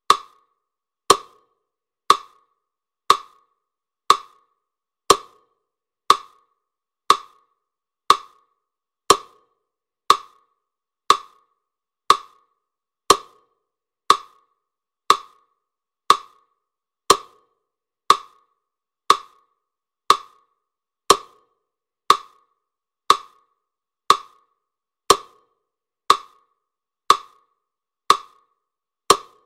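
A single sharp, dry click repeating steadily about once a second, each one dying away quickly, with some clicks heavier and lower than the rest. It is a wood-block or metronome-like beat in the performance's soundtrack.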